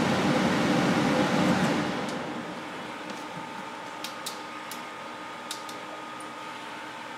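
Kitchen range hood exhaust fan running, switched off about two seconds in and spinning down. The quieter steady hum of the Behmor 1600 Plus drum roaster is left, with a few faint, sparse sharp pops of coffee beans in second crack.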